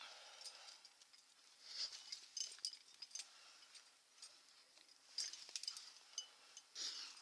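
A climber moving up a rock face: faint scrapes and rustles of hands and clothing on the rock, and scattered light clinks of carabiners and quickdraws on the harness.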